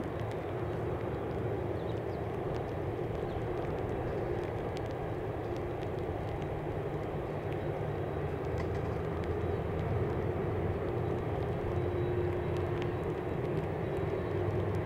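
Jet engines of taxiing airliners, a Boeing 767-300 among them, running at low taxi power. They make a steady distant rumble with a faint whine, growing a little louder near the end.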